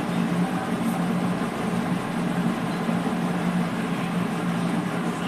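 Washing machine running with a steady, even hum.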